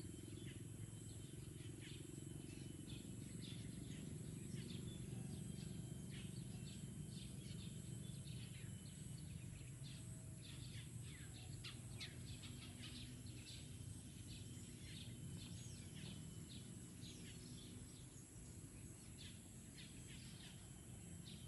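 Faint outdoor ambience: small birds chirping in many short, quick downward notes, over a steady low rumble.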